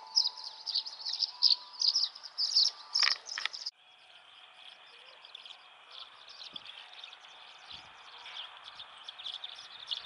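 A flock of swallows twittering in flight, many rapid overlapping chirps. The chirping is loudest for the first few seconds, drops suddenly a little under four seconds in, and then carries on more softly.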